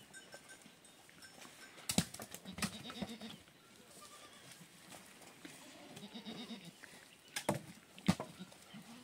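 Livestock bleating a few times, with three sharp knocks, one about two seconds in and two near the end.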